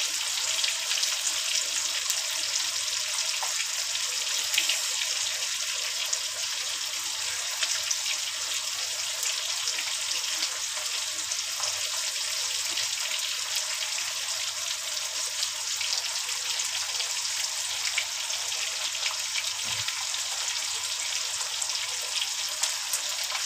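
Spice-coated fish pieces shallow-frying in oil in a pan: a steady sizzle with fine crackling.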